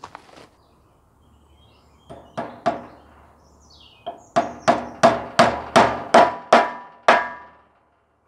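Claw hammer striking the edge of a wooden frame, fixing welded wire mesh to it: two blows about two seconds in, then a steady run of about ten blows, about three a second, with a slight metallic ring.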